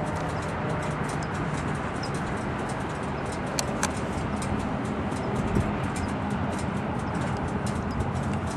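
Distant freight train passing, its diesel locomotives giving a steady low drone over a continuous rumbling hiss, with scattered light ticks.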